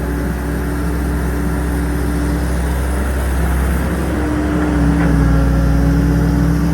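Excavator's diesel engine running steadily, getting a little louder about four seconds in.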